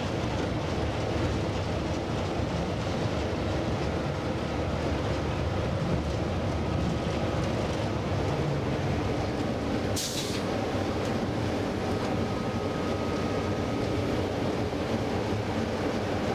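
Class 33 diesel locomotive's Sulzer eight-cylinder engine running steadily, heard inside the cab as the locomotive rolls slowly along a platform. A short hiss of air breaks in about ten seconds in.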